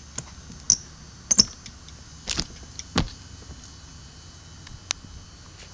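Latches clicking and the hatch door knocking as a travel trailer's pass-through storage compartment is unlatched and swung open: a string of about seven sharp clicks and knocks, the loudest about one and a half and three seconds in.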